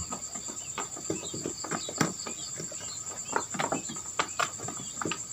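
Female quail pecking hard: irregular sharp taps, several a second, over a steady high-pitched insect-like whine.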